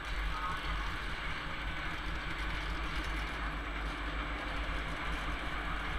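Freight train of tank wagons and car-carrier wagons rolling past, its wheels running steadily on the rails.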